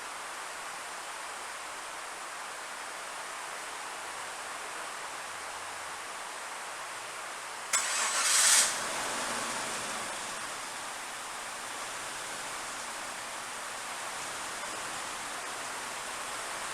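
The 2.5-litre V6 of a 1999 Suzuki Grand Vitara with a misfire is cranked and starts. A loud burst of about a second comes a little before halfway through and dies down over the next second or so. A steady hiss runs before and after it.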